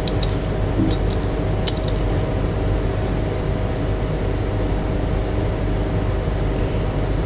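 Steady low background hum with a faint held whine. Near the start come a few light clinks of a glass pipette against a small glass bottle as liquid paraffin is drawn up.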